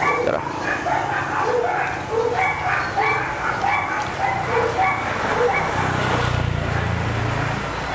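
A dog barking over and over, about two or three short barks a second. A motorcycle engine rumbles past about six seconds in.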